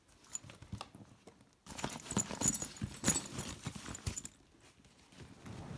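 Ju-Ju-Be fabric backpacks being moved and handled by hand: rustling with a run of small knocks and clicks, busiest from about two to four seconds in.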